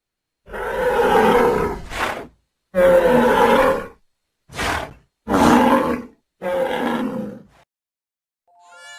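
A wild animal calling: about six loud, pitched calls, each under about a second and a half, with short gaps between them.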